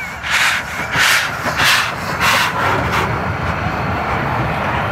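Double-headed steam train, led by ČSD class 423.0 tank locomotive 423.0145, passing close by under steam. Five sharp exhaust chuffs come about 0.6 s apart, then give way to a steady rumble of wheels and running gear as the engines go by.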